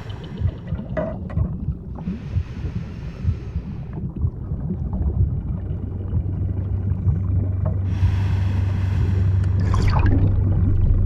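Underwater ambience: a steady low rumble, with a hissing burst about two seconds in and another near the end, and a falling whistle-like glide just before the end.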